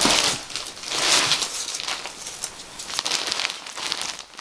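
Packaging rustling and crinkling as supplies are handled and unpacked, with many small crackles and two louder swells near the start and about a second in.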